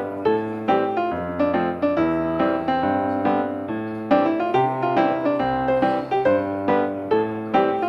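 Background piano music: a flowing run of struck notes over held bass notes.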